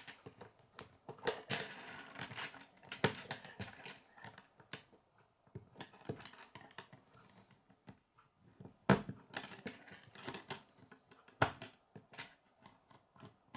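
Plastic K'nex pieces clicking and clattering as they are handled and snapped together, a run of irregular light taps with a couple of sharper clicks about nine and eleven and a half seconds in.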